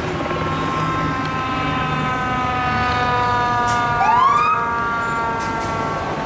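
Fire engine siren sounding a long, steady tone that slowly sags in pitch as the truck approaches and passes. About four seconds in, a second siren tone rises sharply over it. The truck's engine rumbles underneath.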